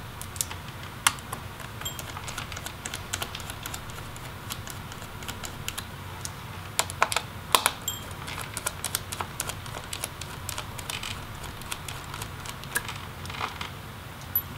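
Small Phillips screwdriver backing out the screws of a laptop's 2.5-inch SATA hard drive caddy: irregular small clicks and ticks of the bit, screws and metal parts, bunched about a second in, around seven to eight seconds in and again near the end.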